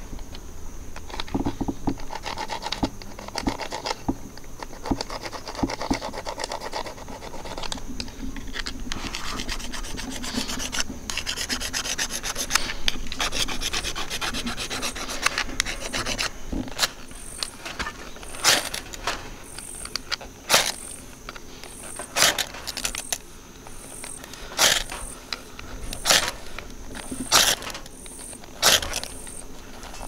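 Magnesium fire-starter rod scraped with a metal striker over wood-shaving tinder. First comes a long stretch of fast, continuous rasping. From about halfway on it gives way to single sharp strikes, roughly ten of them, about a second and a half apart, each one throwing sparks to light the tinder.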